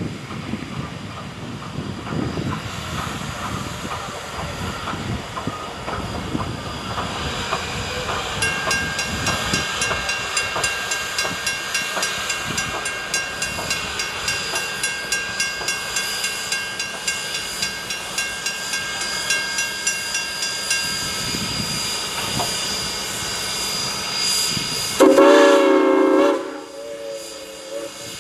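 Norfolk & Western No. 475, a 4-8-0 steam locomotive, working past with a steady exhaust beat of about two to three chuffs a second and a soft, thin whistle tone held for about twelve seconds: the 'ghost whistle', the whistle valve barely cracked open. Near the end the whistle gives one loud, full blast about a second long.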